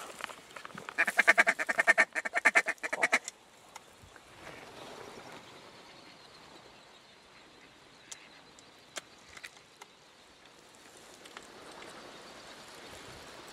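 Mallards quacking: a rapid, loud run of quacks for about two seconds near the start, then only a faint hiss with a few soft clicks.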